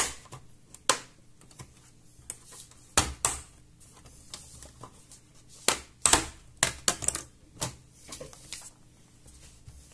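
Bottom case of an Asus Vivobook S15 S530 laptop being pried off by hand, its retaining clips snapping loose: an irregular series of sharp clicks and taps, with a cluster of them about six to seven seconds in.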